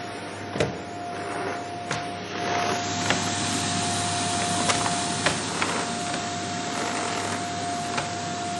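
Vacuum cleaner running on a wooden floor: a steady motor whine over a rushing hiss that grows brighter about two seconds in, with a handful of sharp clicks and knocks scattered through.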